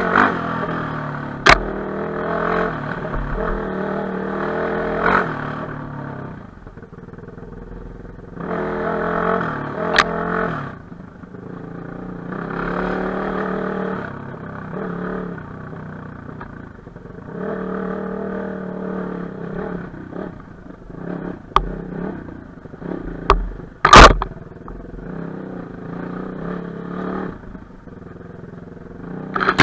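Enduro motorcycle engine revving in repeated bursts with lulls between, as it is ridden over rough trail. A few sharp knocks cut through, the loudest a little more than three-quarters of the way in.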